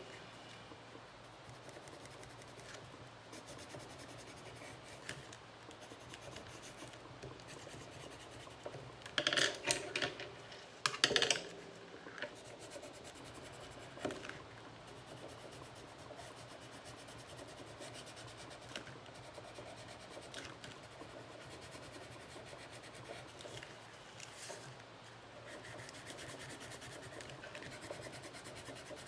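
Water-soluble colouring pencil scratching and rubbing over paper as a stamped image is coloured in. A few louder, brief bursts of handling noise come about nine to eleven seconds in.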